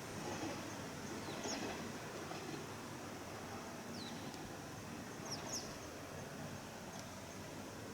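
Faint, steady background noise with a few short, high-pitched bird chirps: one about a second and a half in, one about four seconds in, and a quick pair a little after five seconds.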